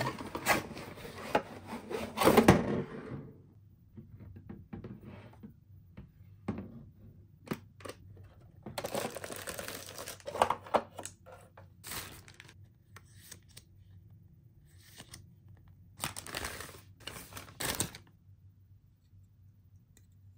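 Unboxing handling noise: a cardboard box rustling and scraping as its lid is slid off in the first few seconds, then plastic bags crinkling and hard plastic toy-kit pieces clicking and knocking on and off.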